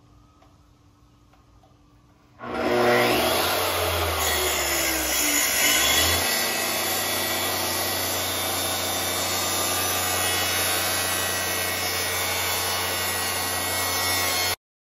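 Makita plunge track saw starting up about two and a half seconds in and ripping a plywood board along its guide rail, running steadily under load. It cuts off suddenly near the end.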